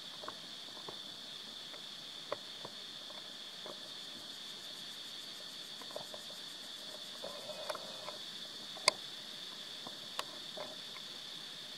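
Steady high-pitched insect chorus, with scattered faint clicks and ticks and one sharper click about nine seconds in.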